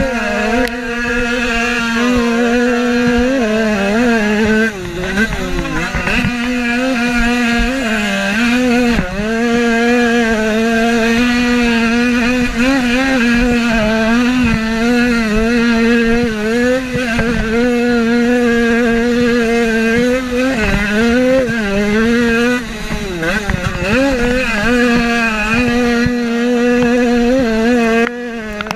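Motocross bike engine at race pace, heard close up from the rider's own bike, its pitch rising and falling with the throttle through the corners and straights, with brief drops about 5, 9 and 23 seconds in.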